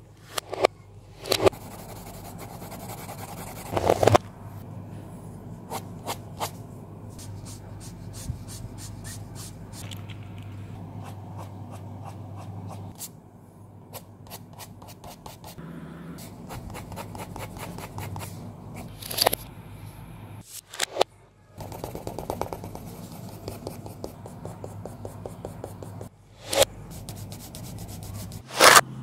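Pencil scratching and rubbing on paper in runs of quick strokes, with a few louder knocks.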